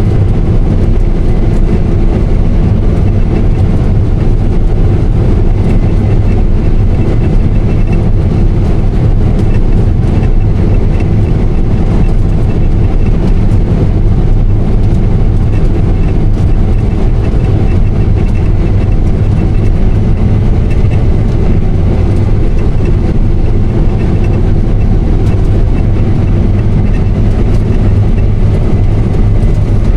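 Combine harvester running steadily while cutting wheat: a constant low engine and threshing drone with no change in pace.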